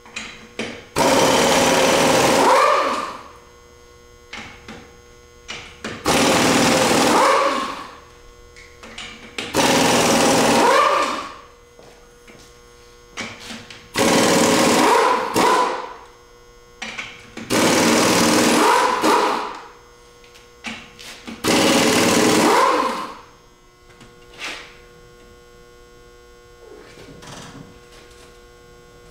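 Pneumatic impact wrench hammering in six bursts of about two seconds each, with small clicks between them, as it works on rusted, oil-soaked nuts on the truck bed's pressed-in fender studs.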